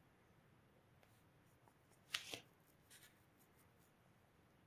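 Near silence: room tone, with one brief faint scratching sound about two seconds in.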